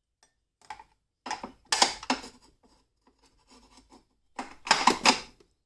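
Hands working the battery hold-down bracket and its hardware into place in the engine bay: two bursts of metal scraping and clatter, about a second in and again near the end, with small clicks between.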